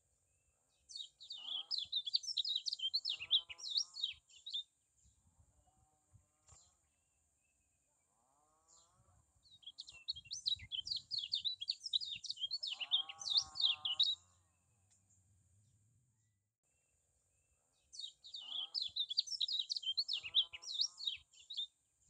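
Kecial kuning (a white-eye) singing in three bursts of rapid, high twittering song, each a few seconds long. Fainter, lower wavering calls sound between the bursts.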